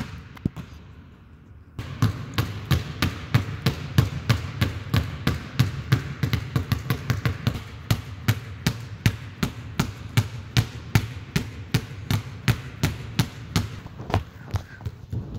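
Basketball being dribbled on a hard court, about three bounces a second, starting about two seconds in and going on steadily.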